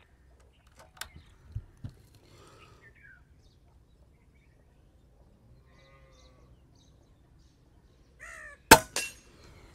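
A single sharp shot from a P15 air rifle near the end, followed about a quarter second later by a fainter crack. Earlier come a few light handling clicks and knocks.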